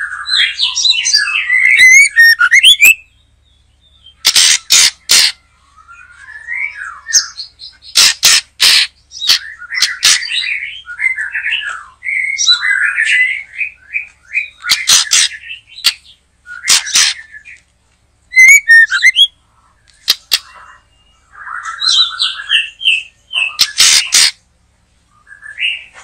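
White-rumped shama (murai batu) singing loudly: varied whistled phrases broken by short pauses and mixed with sharp, harsh clicking notes.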